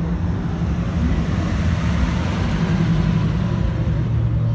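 Engines of classic and lowrider cars running with a steady low rumble as they cruise slowly past in a line, a little louder in the middle.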